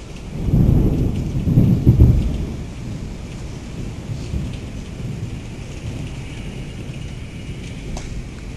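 Heavy rain pouring steadily, with a low rumble of thunder for the first two seconds or so that then fades under the rain.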